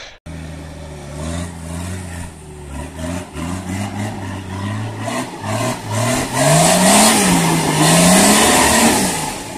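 Nissan off-road 4x4 engine labouring up a steep rocky climb, its revs rising and falling as the driver works the throttle. It is loudest and revving highest over the last few seconds, with a hiss from the spinning tyres.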